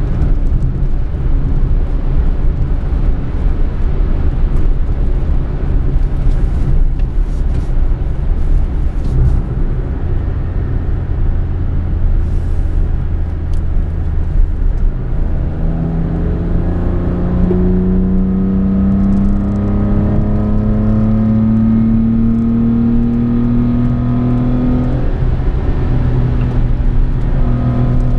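Toyota Aygo with a K&N intake driving, heard inside the cabin: steady engine and road noise, then about halfway through the engine note climbs slowly and steadily as the car accelerates, falling away near the end.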